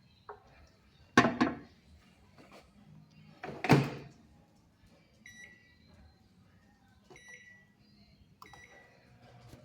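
Microwave oven: two loud clunks, then a few short, high keypad beeps. A low steady hum begins near the end as the oven starts running.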